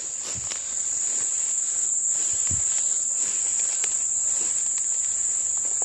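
Insects in the forest droning in one steady, high-pitched tone, with a few soft low thumps underneath.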